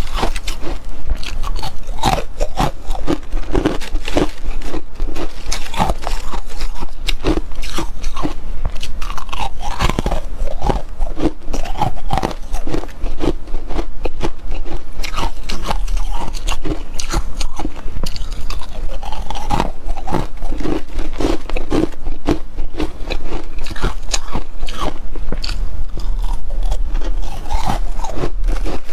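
Freezer frost crunching as it is bitten and chewed, with fingers picking and crumbling pieces from the frost heap: a dense, irregular run of crisp crunches.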